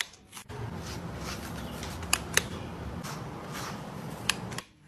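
A pet slicker brush with fine wire pins raking through a cat's thick fur in repeated strokes, a soft rasping hiss. There are a few sharp clicks: two about two seconds in and one more past four seconds.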